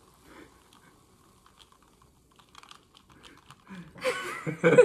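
Freshly poured carbonated soda fizzing over ice in a glass held close to the microphone: a faint, irregular crackle of small bubble pops. Near the end a person's voice comes in, much louder.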